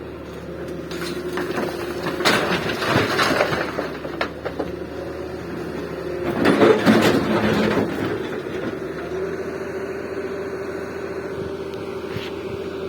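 Daewoo 170W excavator's diesel engine running steadily while its bucket tips loads into a tractor trolley, with two loud rattling spills: one about two seconds in and a louder one about six and a half seconds in.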